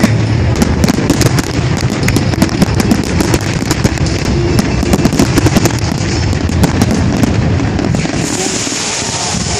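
Fireworks display: rapid, overlapping bangs and crackles of many aerial shells bursting at once. The bangs thin out near the end, leaving a steadier hiss.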